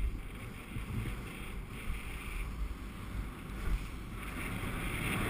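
Wind rumbling on the microphone of a camera moving down a ski slope at speed, over a steady hiss of snow sliding under the rider.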